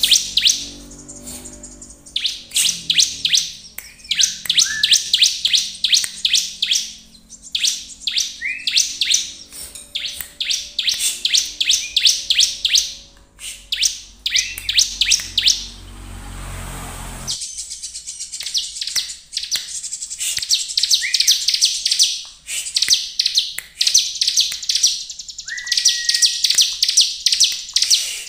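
Bar-winged prinia (ciblek) singing: runs of rapid, high chirps lasting a few seconds each with short pauses between, and now and then a short lower whistled note.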